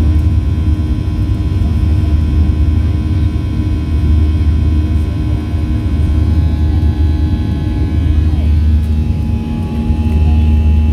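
Cabin noise of a Boeing 737-700 in its climb after takeoff: a steady deep rumble with the CFM56-7B engines' whine of several steady tones on top.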